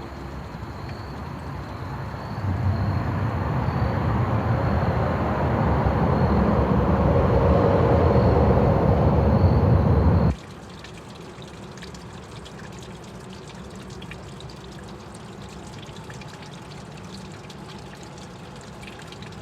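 Rushing water, swelling louder over the first ten seconds, then giving way suddenly about ten seconds in to a quieter, steady stream flow with faint trickling.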